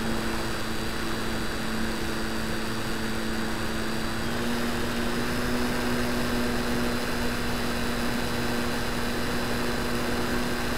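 Model Tiger Moth biplane's motor and propeller running steadily in flight, heard from on board with air rushing past; the pitch creeps up slightly about four seconds in.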